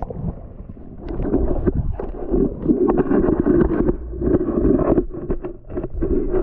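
Muffled rushing and sloshing of water with irregular knocks, heard through a GoPro camera submerged in a shallow pond as it moves through the water.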